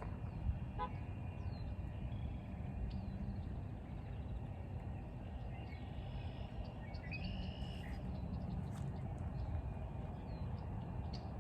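Birds chirping and calling outdoors, short high calls scattered throughout, with two longer held calls. Underneath runs a steady low rumbling noise.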